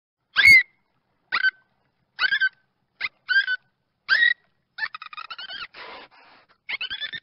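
Dolphin calls: six short squeaky whistles, each bending in pitch, then from about five seconds in a fast chattering run of pulsed squeaks broken by a brief hiss.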